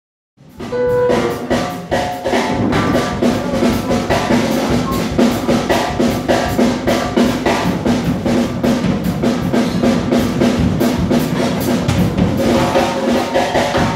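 Live New Orleans jazz band playing an instrumental passage: a drum kit keeps a steady beat under brass and electric guitar.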